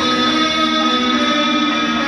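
Live heavy metal music from an arena PA: electric guitar letting slow, sustained notes ring out.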